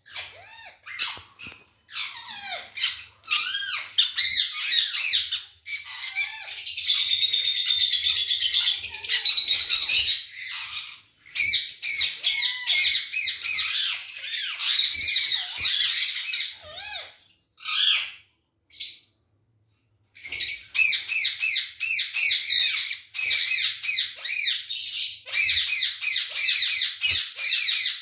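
Many birds chirping and chattering busily and continuously, like an aviary full of small parrots. The chatter stops briefly about two-thirds of the way through, then resumes.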